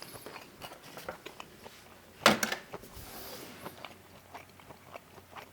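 A person chewing a mouthful of bacon cheddar hot dog close to the microphone, with many small wet mouth clicks and one louder sharp mouth sound about two seconds in.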